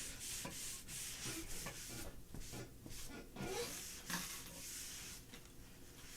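Sponge rubbing wet stain across a sanded plywood cabinet top, faint and in repeated back-and-forth strokes along the grain.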